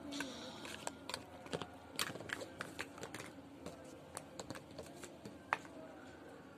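Small plastic toy cookware being handled: irregular light clicks and taps, with one sharper click about five and a half seconds in.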